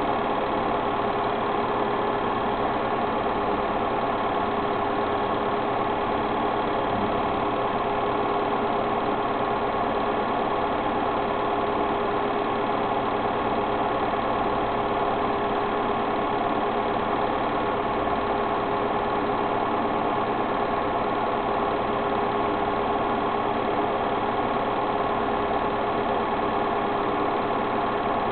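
A small motor running steadily: an even mechanical hum with a few fixed tones that does not change.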